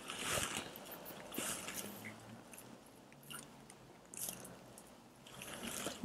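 Several short, soft scratchy swishes about a second apart, from a watercolour brush being worked in paint and water just out of view.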